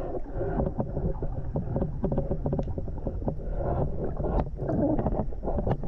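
River current heard underwater: a steady low rush of flowing water with many small, irregular clicks and ticks.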